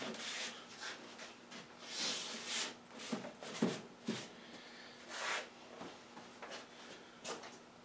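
A cloth rubbing and wiping dust off a push mower's engine cover in short, irregular strokes, with a few light knocks of hands and parts being handled. A faint steady hum runs underneath.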